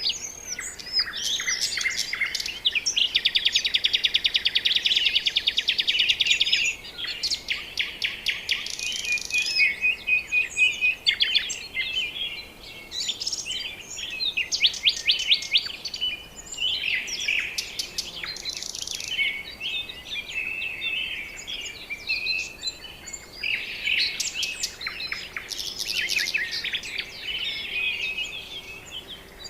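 Several birds calling and singing together in a steady chorus of chirps, whistles and trills, with a long, very fast trill from about three to six seconds in.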